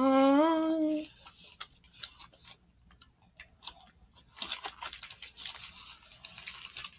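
A child's voice holds one long hummed note for about a second, then the aluminium foil wrapper of a giant chocolate kiss crinkles and crackles in irregular clicks as it is handled, growing busier near the end.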